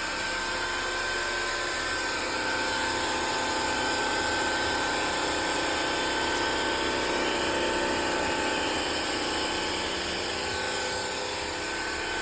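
TICWELL SW301 cordless wet-dry floor cleaner's motor running steadily with a high-pitched whine, a little louder from about two seconds in.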